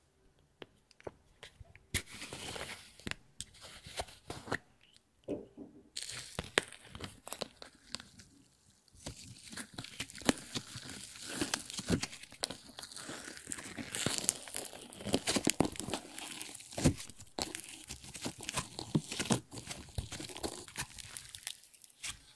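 Thick peach slime being pulled by hand out of a plastic pumpkin-shaped jar and stretched, with sticky crackling and many small pops, starting about two seconds in.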